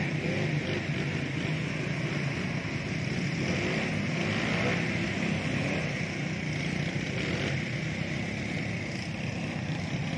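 Engines of several small ATVs (quad bikes) running steadily as they ride around close by, swelling slightly midway.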